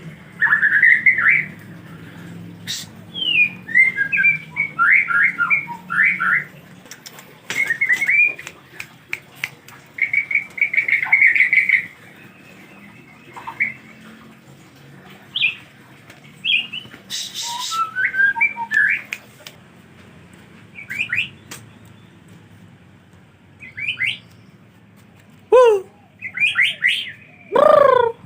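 A murai songbird calling in short bursts of quick chirping, sweeping notes with pauses between them, and two loud downward-sliding calls near the end.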